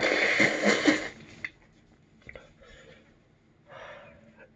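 A man blowing out one hard, hissing breath for about a second, then breathing softly, as he takes the burn of a superhot chili pepper in his mouth.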